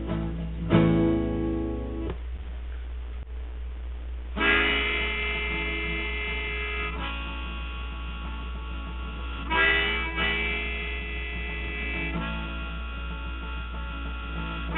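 Instrumental break of a blues song: a harmonica playing long held chords, with a steady low hum underneath.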